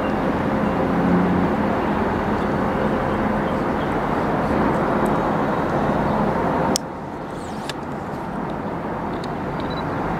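Diesel locomotive approaching from a distance: a steady low drone under a wide hiss, which drops suddenly about seven seconds in and then slowly grows louder.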